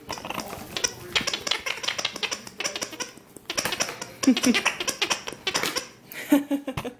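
Giggle Buddy plush moose toy being shaken hard, its built-in sound box giggling over a rapid clattering rattle.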